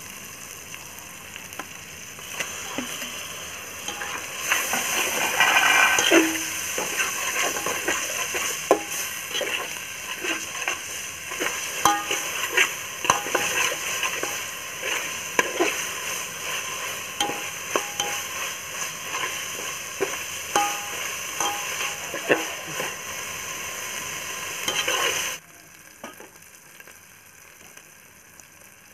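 Onion-tomato masala sizzling in oil in an aluminium pot while a steel spatula scrapes and clacks against the pot as it is stirred. The sizzle grows louder about five seconds in, and cuts off abruptly near the end, leaving it much quieter.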